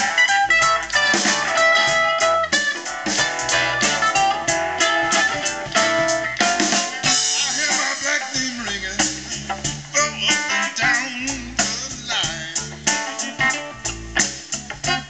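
Live blues band playing an instrumental passage, with plucked strings such as mandolin and guitar to the fore over bass and drums.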